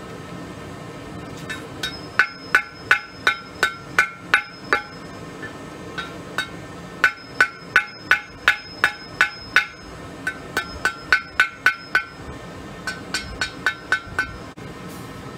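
Blacksmith's hammer striking hot steel rebar on an anvil while forging tongs: three runs of ringing metallic blows, about three a second, with short pauses between the runs.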